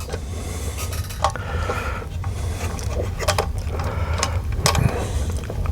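Small clicks and scrapes of hand tools, screws and plastic parts being handled during the reassembly of a car radio and touch-screen unit, over a steady low hum.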